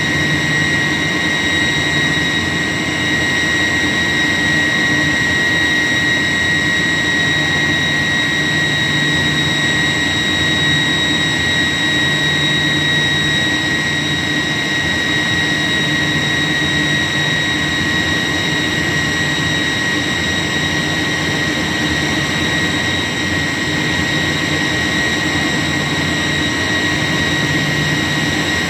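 York YK centrifugal chiller running: a steady high whine over a constant machine rush and low hum.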